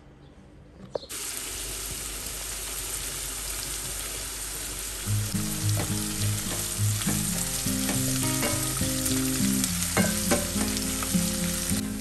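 Chopped onions sizzling in hot oil in a pot, stirred with a wooden spatula; the sizzle starts suddenly about a second in. Background music with a low melody comes in about halfway through.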